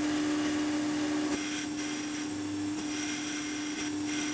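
Milling machine spindle running with a steady hum while a small jobber drill bit drills a ring of holes into the part; higher cutting noise comes and goes as the bit goes in and out of the holes.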